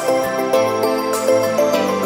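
Background music: a soft melody of short notes over a light, regular beat.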